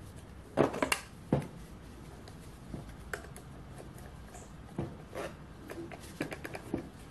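Handling clicks and knocks as a saw blade is fitted into and taken out of a small cordless reciprocating saw's blade clamp, metal tapping on metal and on the plastic case. A quick cluster of sharp clicks comes about a second in, then scattered single taps.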